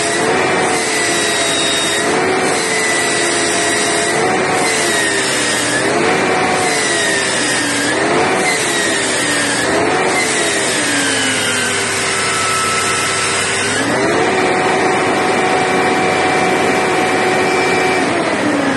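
Coach drivetrain running under the floor, its engine revved up and down several times with a whine that rises and falls with the revs. It then sags, climbs again and holds a steady higher speed for about four seconds before dropping near the end.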